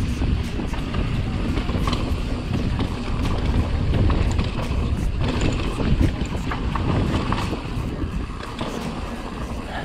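Mountain bike descending a rough dirt singletrack over brake bumps: wind buffeting the camera microphone, with tyre noise and a continual irregular clatter and rattle from the bike.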